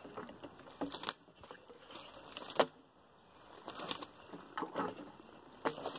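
Irregular knocks and rustles as a well pipe is worked up and down by hand to draw water through a newly fitted foot valve, with one sharper knock a little before halfway through.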